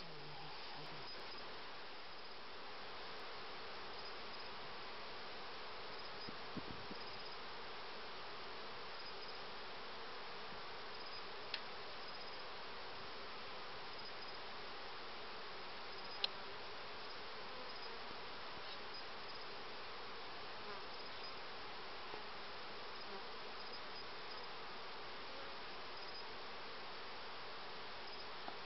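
Steady buzzing of a colony of Carpathian honeybees around an open hive. Two faint single ticks come partway through.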